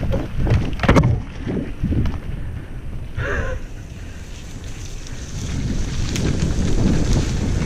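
Wind buffeting a helmet-mounted camera mic over the rumble and rattle of a downhill mountain bike rolling over a rough dirt trail, with sharp knocks from bumps in the first couple of seconds. A brief wavering high sound about three seconds in, and the rushing noise grows louder from about five seconds in as speed builds.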